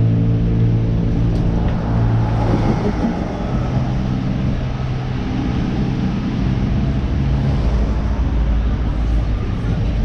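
Street traffic: a vehicle engine runs with a steady hum for the first two or three seconds, then gives way to mixed passing-traffic noise with a low rumble in the second half.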